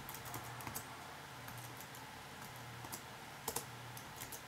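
Computer keyboard being typed on: light, irregular keystrokes, with a couple of louder taps about three and a half seconds in, over a faint low hum.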